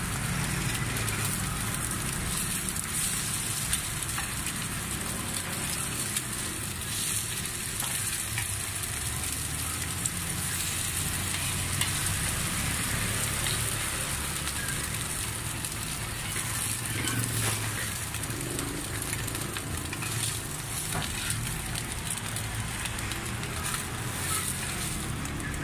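Pieces of rice-flour cake (bột chiên) frying in oil in a pan: a steady sizzle with occasional light clicks.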